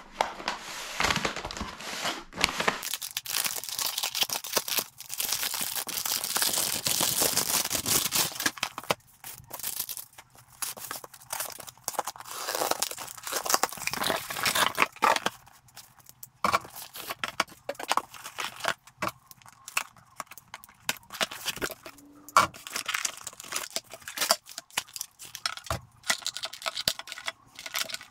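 A plastic mailer bag is torn open and crinkled for several seconds. Then a cardboard box is opened and handled, with scattered rustles and light knocks.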